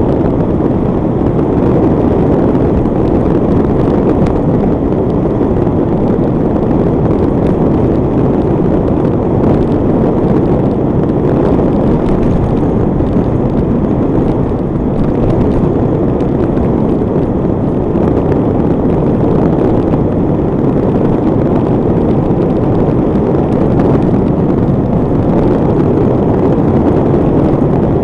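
Heavy, steady wind buffeting on the microphone over the running and tyre noise of a Honda CBR1100XX Blackbird motorcycle cruising at speed.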